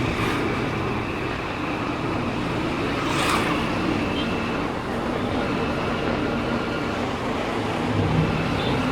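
Steady road noise from a motorbike ride in traffic: a small engine running under wind and tyre noise. A brief rushing sound about three seconds in.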